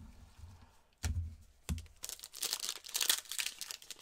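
A few low thumps, then the foil wrapper of a 2019-20 Optic basketball card pack crinkling and tearing as it is ripped open, starting about halfway through.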